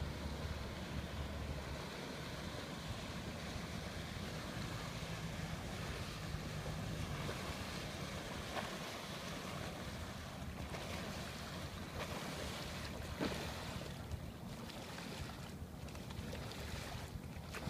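Yamaha F115 four-stroke outboard running as a small boat comes in close, under a steady wash of water and wind on the microphone.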